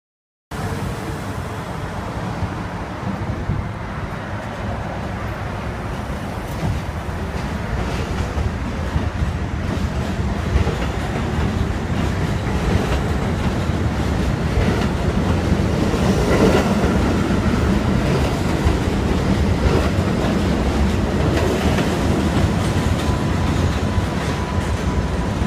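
New York City subway R42 cars running on an elevated steel line: a steady rumble with wheel clatter, growing a little louder partway through.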